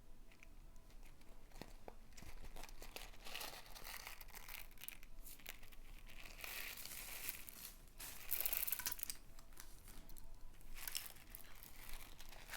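Slime being kneaded and stretched by hand while pigment is worked in, making irregular sticky crackling and tearing sounds in waves, loudest about eight seconds in.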